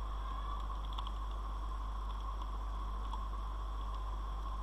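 Steady electrical hum and hiss, with a few faint keyboard clicks as code is typed.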